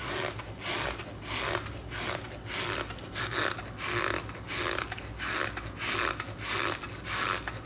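Repeated rubbing strokes in a steady rhythm, about two a second, each a short noisy swish.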